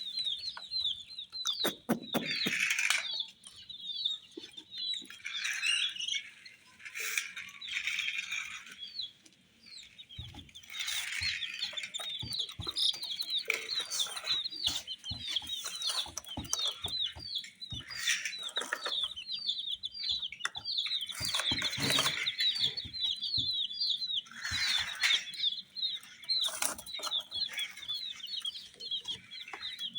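Baby chicks peeping continuously: a steady run of short, high chirps, several a second, with bursts of rustling and sharp taps from the chicks moving about.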